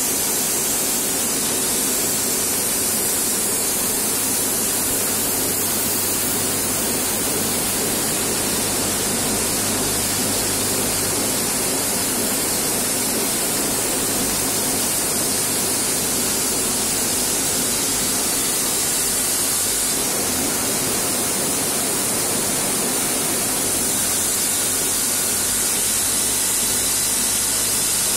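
Self-drilling screw forming machines running on a production line, making a steady, dense mechanical noise with a strong hiss on top.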